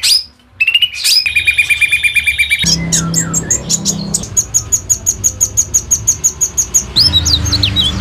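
Caged songbirds singing in turn: first a fast high trill, then a long run of rapidly repeated high notes, then whistled notes sliding up and down near the end.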